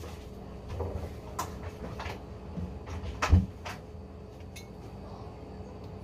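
A few scattered knocks and clinks of a ceramic soup bowl and metal spoon being handled, the loudest a dull thump a little past three seconds in.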